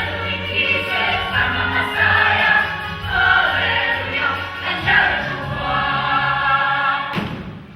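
Chorus of young performers singing a stage-musical number with accompaniment; the music stops abruptly about seven seconds in.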